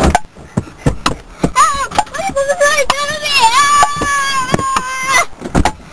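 A high-pitched voice singing long held notes that waver and bend, with scattered knocks and bumps.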